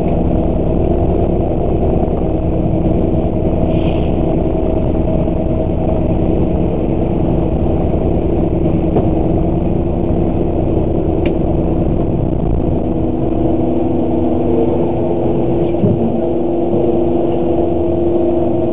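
Bus engine idling while the bus stands still, heard from inside the cab: an even drone with a low rumble and several steady hum tones.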